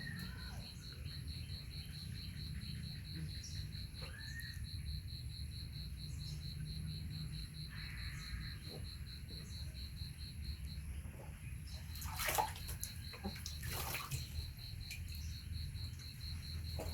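Water sloshing and splashing as a small monkey is bathed, with two sharper splashes about twelve and fourteen seconds in. Insects chirp in a steady pulse underneath.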